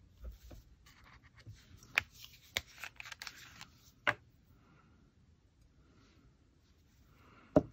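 Art supplies being handled on a craft table: a stretch of rustling broken by several sharp clicks and taps, with the loudest click near the end.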